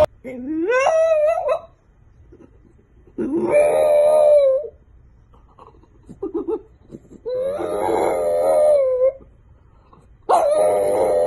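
French bulldog howling: four long howls with pauses between them, the first sliding up from a low pitch.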